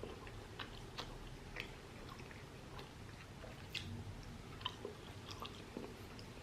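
A person chewing a mouthful of chicken biryani: faint, irregular wet mouth clicks and smacks.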